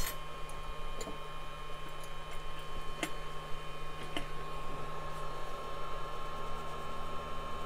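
Steady electrical background hum with a faint, constant high tone, and a few light clicks about one, three and four seconds in.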